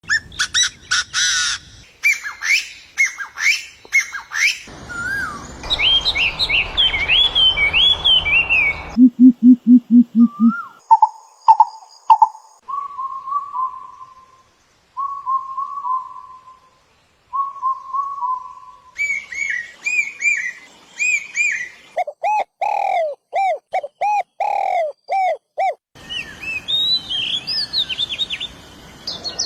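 A series of different bird calls, one kind after another, each lasting a few seconds and changing abruptly: rapid high chirps and whistled glides, a quick run of low pulsed notes, short warbled phrases, and loud repeated two-part calls.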